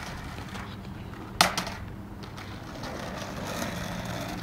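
Skateboard hitting the asphalt with one sharp clack about a second and a half in, then the urethane wheels rolling over the asphalt with a steady rumbling hiss.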